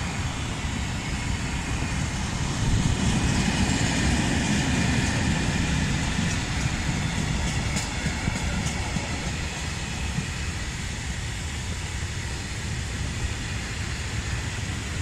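Freight train of tank wagons rolling past: a steady rumble and rush of steel wheels on the rails, louder in the first few seconds and easing slightly later, with a couple of light clicks about eight seconds in.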